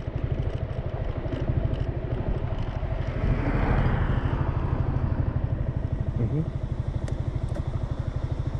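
Honda Forza 350 scooter's single-cylinder engine running at low speed, a steady throb, as the scooter rolls slowly along a gravel shoulder. A passing pickup truck swells and fades about three to four seconds in.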